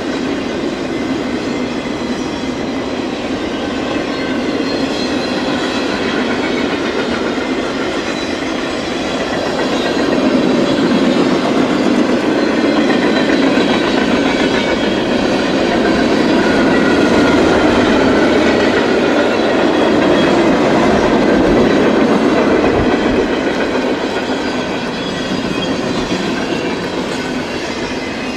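Freight train cars rolling past, a steady rumble with the clatter of wheels over the rails, growing louder in the middle and easing off near the end.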